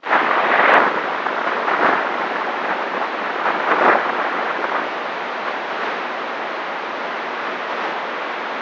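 CB radio static: a steady rush of hiss that comes on abruptly as a transmission ends, a little stronger in the first second and again about four seconds in.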